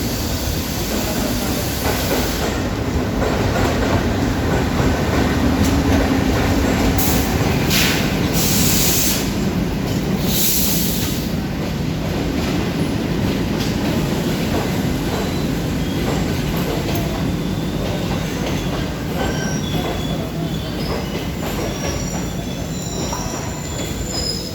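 The Saryu Yamuna Express passenger train rolling into the station, its wheels rumbling and clattering on the rails with squealing as it slows, over the steady hiss of heavy rain. A few loud bursts of hiss come about a third of the way in, and faint high wheel squeals sound near the end.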